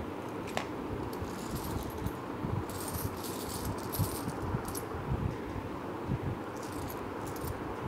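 Faint rustling over a low rumble, with a few short clusters of light clicks.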